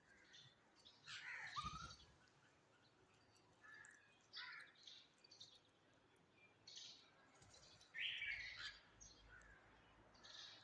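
Several birds calling and chirping, short separate calls at irregular intervals, the loudest about a second and a half in and again about eight seconds in.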